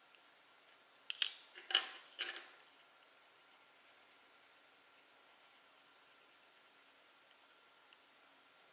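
Three short scratchy strokes of a tool on paper, a little over a second in, against faint room tone.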